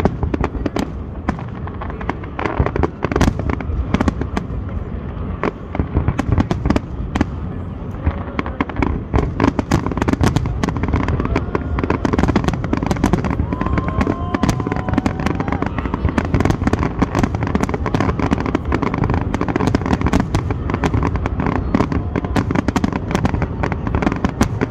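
Fireworks display going off without pause: a dense run of sharp crackling and popping bangs over a steady rumble, growing thicker about a third of the way in.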